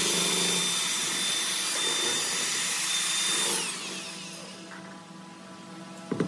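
Electric drill with a paddle mixer running in a metal bucket of cement slurry, its motor whining steadily. About three and a half seconds in it slows, the whine falling in pitch, and runs on more quietly. There is a sharp knock near the end.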